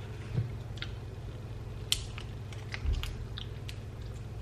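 Someone tasting a sugar-free honey substitute: a few small scattered clicks and mouth sounds, with a soft low thump about three seconds in, over a steady low hum.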